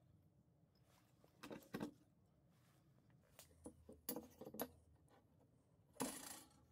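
A metal pipe and a metal carpenter's square being handled and set down on a wooden workbench: a few light knocks and clinks about a second and a half in and again around four seconds in, then a short scraping sound near the end.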